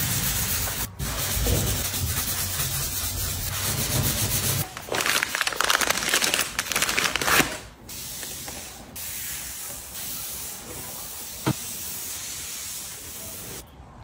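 Sponge scrubbing back and forth on a white cabinet top to lift a layer of grime, loud and stroke by stroke for the first seven seconds or so. It then gives way to a quieter, softer cloth wiping the surface.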